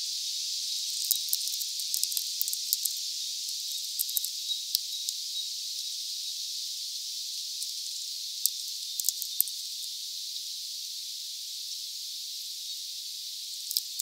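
Steady hiss with scattered sharp clicks in small clusters, the sound of a European greenfinch cracking sunflower seeds and pecking among seeds and husks at a feeder.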